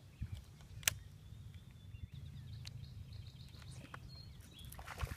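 Quiet outdoor ambience on a lake: a low steady rumble, one sharp click about a second in, faint high ticks through the middle, and another click near the end.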